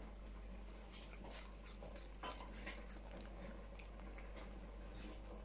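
A dog chewing pieces of apple: faint, irregular crunching clicks.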